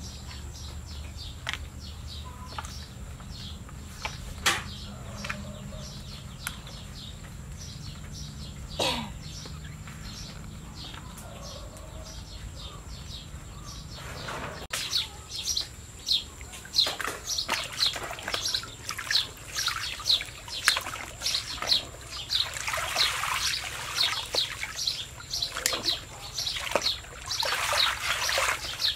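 A low steady hum with a few scattered clicks and faint chirps. About halfway through, water splashes and sloshes repeatedly as a plastic basket of fresh rice noodles is dunked and swished in a tank of water to rinse them.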